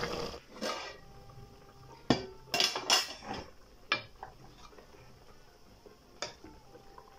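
Wooden spoon knocking and scraping against a metal cooking pot while stirring a stew: about six separate knocks, the loudest few between two and three seconds in.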